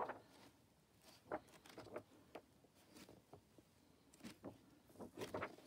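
Pages of an aged hardback book being leafed through and turned by hand: a scattering of soft, short paper rustles and flicks with quiet gaps between them.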